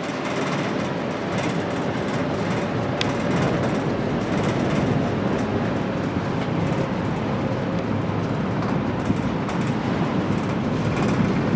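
Steady rumble and hiss inside a moving aerial cable car gondola as it runs along its ropes, with a faint steady hum and one sharp click about three seconds in.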